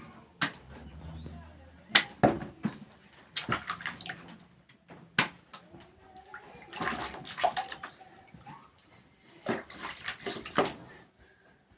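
Water splashing and sloshing in short, irregular bursts, with sharp knocks in between.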